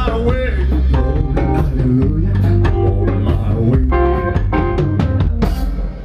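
Live band playing: a drum kit hitting hard over electric bass, with the singer's voice only briefly at the start. The music drops away suddenly at the very end.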